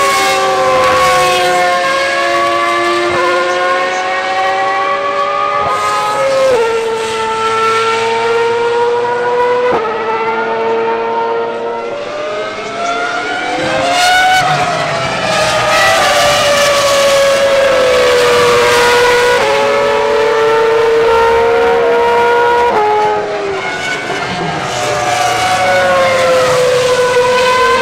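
Ferrari Formula 1 cars' high-revving engines running at speed on the track. The high engine note steps abruptly with each gear change and rises and falls in pitch as the cars go past, dipping briefly twice between cars.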